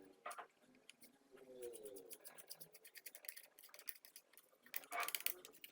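Toothbrush bristles scratching dust out of a laptop cooling fan's exhaust passage: a run of faint scratchy clicks, with a louder brushing stroke just after the start and another near the end.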